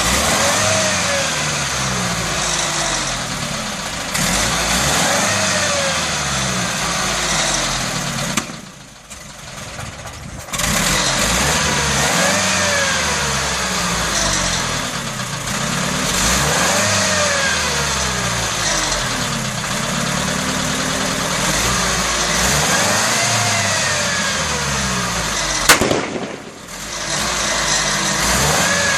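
Robur LO truck's air-cooled petrol engine being revved up and let fall back again and again, every few seconds, and briefly falling quiet about nine seconds in. Near the end comes one sharp bang, a backfire from the exhaust.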